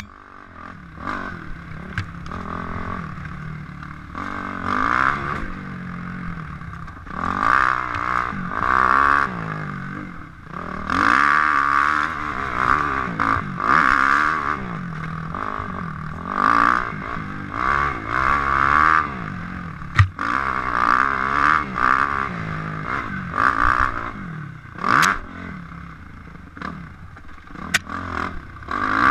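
Suzuki RM-Z250 four-stroke single-cylinder motocross engine revving up and down as the bike is ridden hard along a dirt trail, heard through a helmet-mounted camera. A few sharp knocks from the bike over bumps in the second half.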